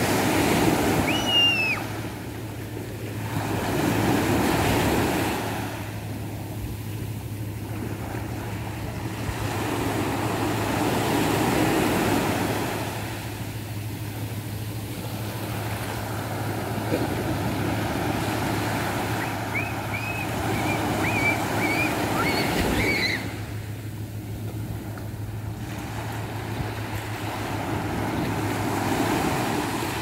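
Small ocean waves breaking and washing up a sandy beach, the surf swelling and falling every few seconds.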